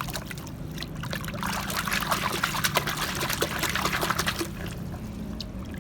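Water pouring and splashing over a small plastic toy being rinsed clean of mud, with small clicks and knocks of handling. It eases off about two-thirds of the way through.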